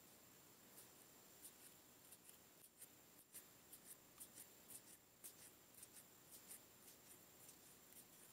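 Faint scratchy rustling and light crisp ticks from handling close to the microphone, irregular and otherwise near silence.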